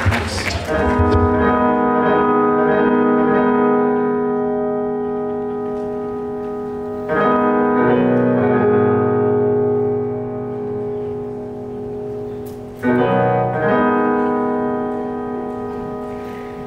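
Electronic stage keyboard playing slow, sustained piano chords. A new chord is struck about every six seconds and left to ring and fade. Applause dies away as the first chord comes in.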